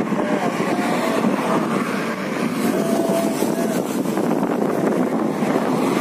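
Steady rushing noise of strong wind on the microphone, mixed with the hum of traffic on a nearby main road.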